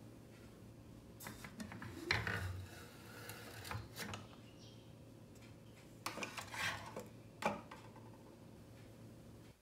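Clinks, scrapes and light knocks as the dome lid and metal mesh plunger of an R2-D2 French press are lifted out of its glass carafe and set down, in two bouts with the sharpest knock near the end.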